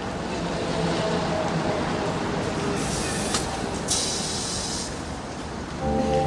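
Motorcycle riding on town streets: engine noise under a steady rush of wind on the microphone, with two short bursts of hiss about three and four seconds in. Music comes in just before the end.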